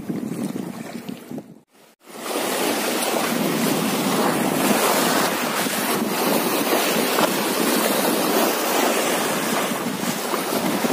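Wind and waves on open sea: a steady rushing noise that starts about two seconds in, after a brief drop to silence.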